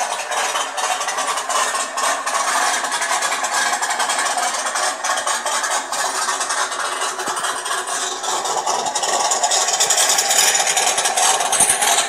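Small loudspeakers built into a miniature model car, playing loud and heavily distorted: a steady noisy sound with almost no bass, growing a little louder near the end.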